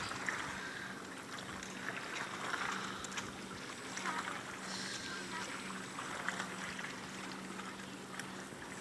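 Open-air waterside ambience: a steady low hum under a wash of wind and water noise, with scattered faint distant voices and a few light clicks.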